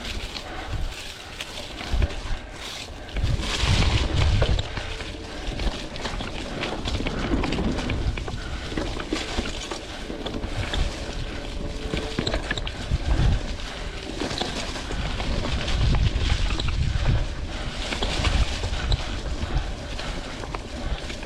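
Wind buffeting a chest-mounted action camera's microphone in low surges while a vintage Klein Attitude Comp mountain bike rolls over dirt single track, its tyres crunching and its frame and parts rattling in a steady stream of small clicks.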